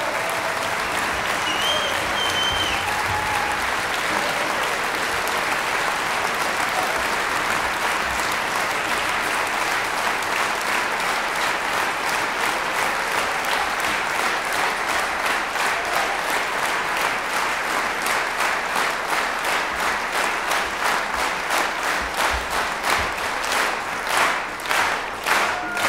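Concert hall audience applauding. About halfway through, the clapping falls into a steady rhythm in unison, and the beat grows stronger toward the end.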